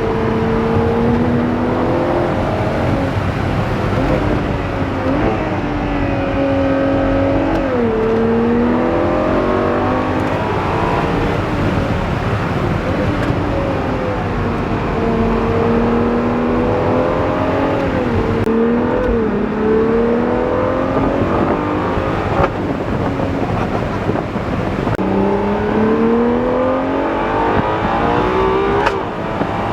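Ferrari Daytona SP3's naturally aspirated 6.5-litre V12 heard from inside the cabin under hard acceleration. The revs climb and then drop sharply at gear changes, about a quarter of the way in, about two thirds of the way in and near the end.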